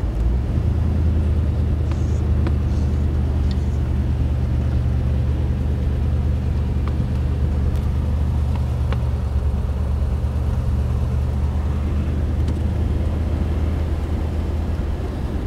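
1955 Cadillac's 331 cubic-inch V8 running on the move at a steady cruise, heard from inside the car as a loud, even, low drone.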